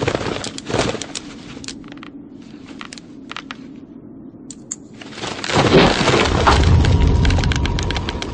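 Knitting needles clicking and scraping through hair, sharp and irregular, sparser in the quieter middle. About five and a half seconds in, a loud swell of rushing noise with a deep rumble rises over them.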